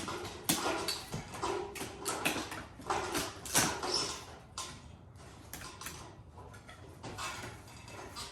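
Irregular scraping strokes and light knocks and clatter of debris being swept up and handled on the bus roof, busier in the first half.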